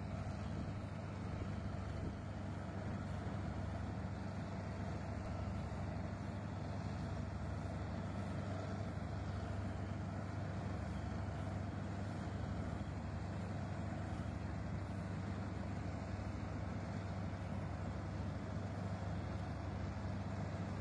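Farm machine's engine running with a steady low drone.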